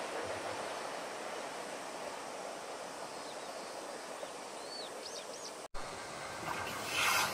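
Fading rumble of a receding Izukyu 8000 series electric train, with a few short bird chirps about five seconds in. Near the end, after a brief dropout, the rising sound of a 251 series Super View Odoriko train approaching.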